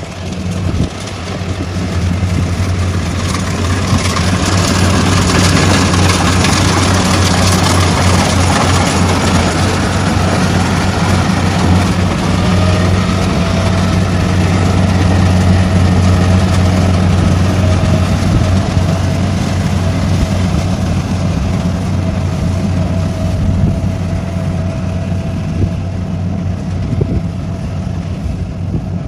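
Kubota rice combine harvester running steadily as it harvests, its diesel engine and threshing machinery making a continuous low drone with a whine layered on top. The sound eases slightly near the end as the machine moves away.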